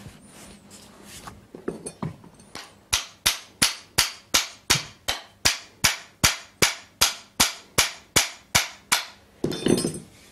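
Blacksmith's hand hammer striking metal in a steady rhythm, about two and a half to three blows a second, each blow ringing briefly. A few lighter, irregular knocks lead in, and a short clatter follows near the end.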